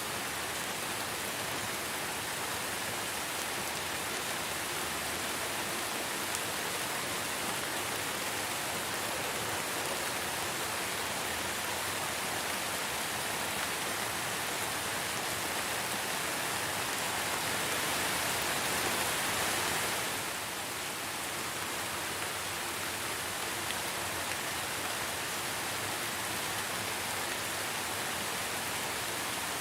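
Steady rain falling, an even hiss of drops with no distinct patter, growing a little heavier about two-thirds through and easing back just after.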